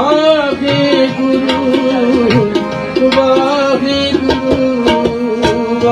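Sikh kirtan: a harmonium and tabla accompanying a singer's drawn-out, gliding vocal line, with steady tabla strokes throughout.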